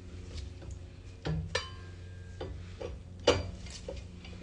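Metal clicks and clinks of lug nuts and a lug wrench being worked onto a truck wheel's studs: a ringing clink a little after a second in and a sharp clank a little over three seconds in, over a steady low hum.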